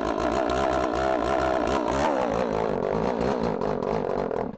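Freshly ported Stihl MS270 two-stroke chainsaw engine running just after its first start, its throttle blipped up about two seconds in before it settles to a steadier, lower speed. The carburetor has not been adjusted yet, and it runs in need of tuning.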